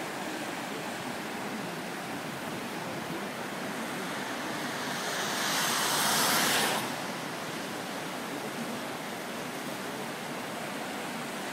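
Muddy floodwater rushing down a flooded wadi in a steady roar, swelling louder for about two seconds midway.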